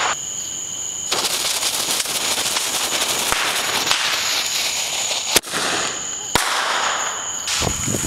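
A firework spraying sparks with a steady hiss, starting about a second in, and two sharp pops about a second apart near the end.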